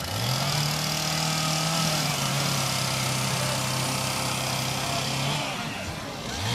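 A small engine revs up quickly and holds a steady high speed. It drops back briefly near the end, then revs up again.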